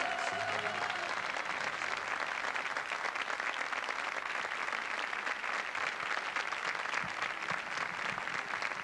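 A studio audience applauding steadily, many hands clapping together. The band's last held note fades out about a second in.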